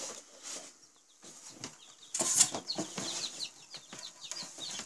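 Day-old Silver Duckwing Leghorn chicks peeping, a run of short, high, falling cheeps that grows busier in the second half. About two seconds in, the plastic brooder box lid gives a loud rustle and clatter as it is lifted.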